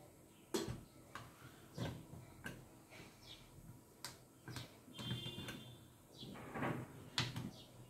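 Scattered light clicks and knocks of metal on metal as the lid of a Prestige Clip-on Mini stainless steel pressure cooker is handled and fitted, with a short ringing tone about five seconds in.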